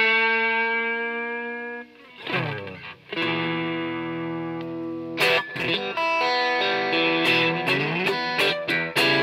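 Stratocaster electric guitar played through an IDEA-TSX ver.2 Tube Screamer-style (TS808) overdrive pedal, mildly overdriven. A chord rings out and fades, a short note slides downward about two seconds in, then more chords are struck and held, with fresh strums about five and nine seconds in.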